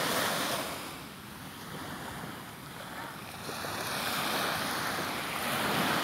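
Sea waves breaking and washing onto a beach: a surge at the start that eases off after about a second, then builds again in the second half.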